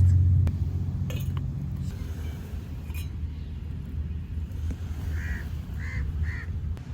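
A crow cawing three times in quick succession, over a steady low rumble.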